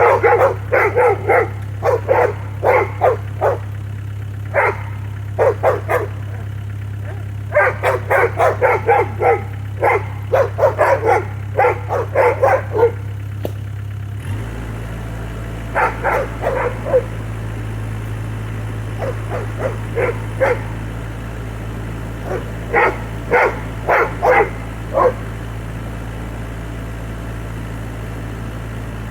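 A dog barks repeatedly in bursts of quick barks, with pauses between the bursts, over the steady low hum of a Bobcat E26 mini excavator's diesel engine. The engine's note changes about halfway through.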